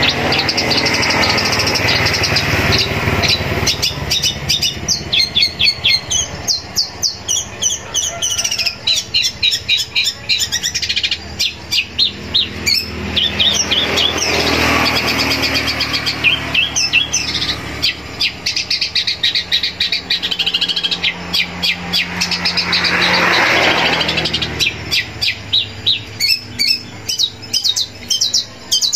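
Long-tailed shrike (cendet) singing a long, varied song packed with mimicked phrases: fast chattering runs of rapidly repeated high notes, changing pattern every few seconds. A low rushing noise swells and fades three times beneath the song.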